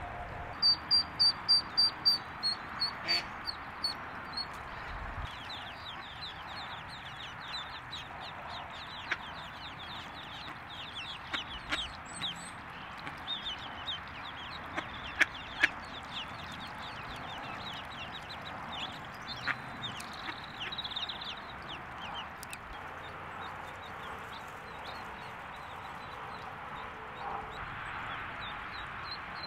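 Mallard ducklings peeping: a quick run of high, evenly repeated peeps about a second in, then many short, falling peeps on and off, over a steady background hiss.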